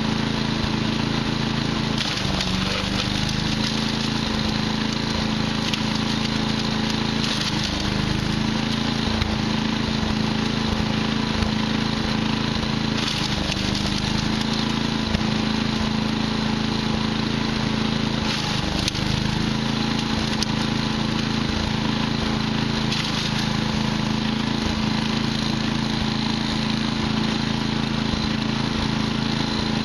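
Gas engine of a Patriot wood chipper running steadily under throttle, its pitch sagging briefly about every five seconds as branches are fed in, each time with a burst of crackling as the wood is chipped.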